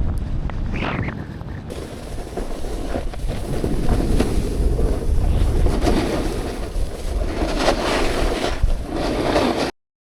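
Wind buffeting the microphone over the hiss and scrape of a snowboard sliding on snow, swelling and easing in waves; it cuts off suddenly near the end.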